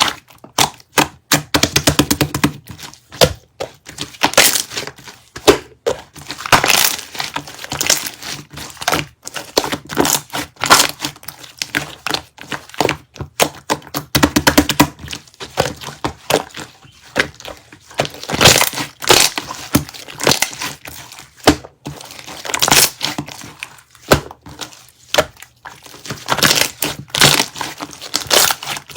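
Close-up crackling and crinkling of handled material: a dense run of sharp clicks and crackles with brief pauses, including a few quick rattling trains of clicks.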